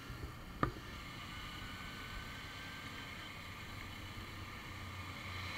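Sport motorcycle riding along at a steady speed: a steady drone of engine and wind noise, with a single sharp knock about half a second in.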